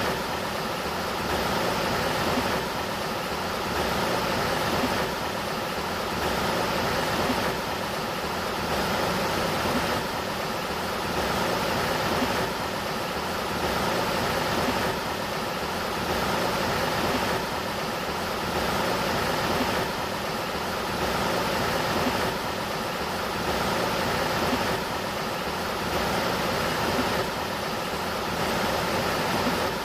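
Sacramento River water rushing steadily, its noise swelling and easing about every two and a half seconds.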